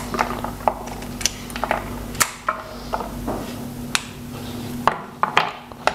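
Irregular sharp clicks and taps of a small plastic cleaning tool against the dicing grid of a Bosch MUM 5 dicer attachment as stuck vegetable pieces are pushed out. A steady low hum runs underneath and stops about five seconds in.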